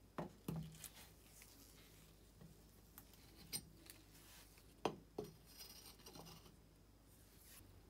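Quiet clicks and clinks of a polished brass stove fuel tank being handled: its filler cap comes off and a plastic funnel is set into the filler opening. A few sharp ticks, the loudest a little before the middle, then a light scraping near the end.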